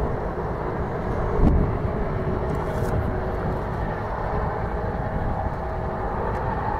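Engines of a twin-engine wide-body jet airliner on the runway, heard from afar as a steady rumble with a faint whine. A low thump comes about a second and a half in.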